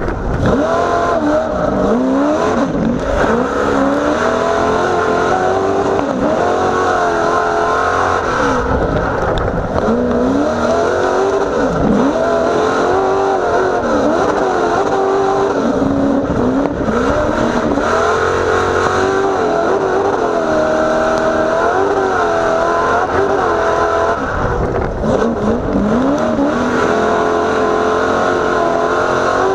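Engine of a 900-horsepower short-course off-road race truck heard from inside the cab, revving up and falling back again and again as the throttle is worked on the dirt track.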